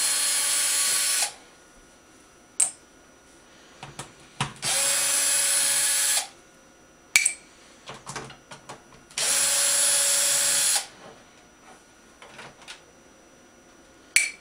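Cordless drill-driver spinning screws out of a TV's back cover in three runs of about a second and a half each. Between the runs come short sharp metallic clinks, the last near the end, as screws drop into a steel magnetic parts tray.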